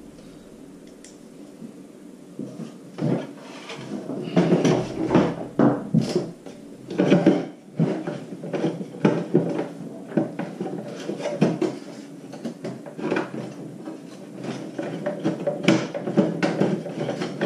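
Plastic housing of a portable propane heater being handled, with irregular clicks, knocks and scrapes as a screwdriver and screw fumble for a screw hole that can't be seen. The clatter is busiest from about three to eight seconds in.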